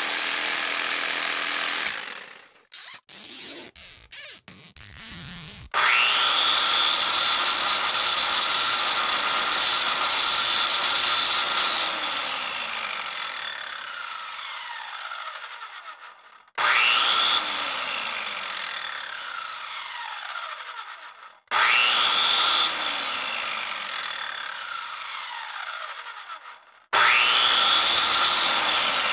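Electric power tool motor started four times, each run beginning abruptly at full speed and slowly spinning down with falling pitch, after a few seconds of short, broken bursts.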